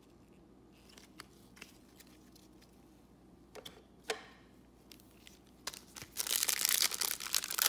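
Soft clicks of trading cards being flipped and set down, then, from about six seconds in, loud crinkling and tearing of a foil-lined Topps card pack wrapper being ripped open.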